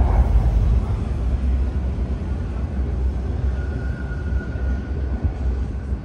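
Steady low outdoor rumble at an open elevated light-railway platform, with a faint thin whine for a second or two around the middle.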